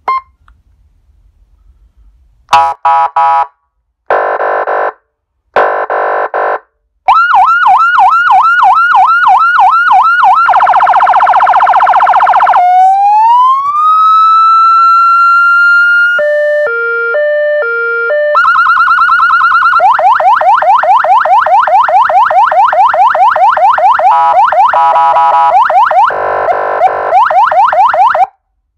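A 200 W Signal Division electronic vehicle siren (SGU) is switched through its tones. First come a few short horn-like blasts, then a yelp sweeping up and down about three to four times a second, then a very rapid warble. After that a slow wail rises and levels off, a stepped two-tone hi-lo pattern follows, and then fast warble and yelp return near the end.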